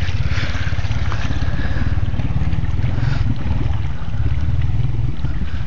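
ATV engine running steadily under load as the four-wheeler wades through deep water, a low, rapid, even exhaust pulse.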